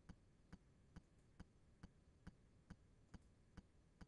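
Near silence with a faint, regular ticking, a little over two evenly spaced ticks a second.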